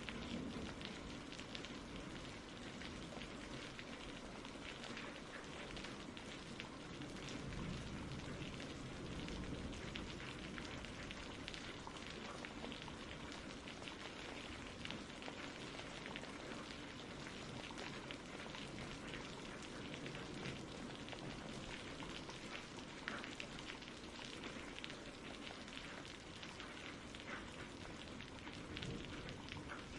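Steady rain falling on a surface, with many small drops ticking through it.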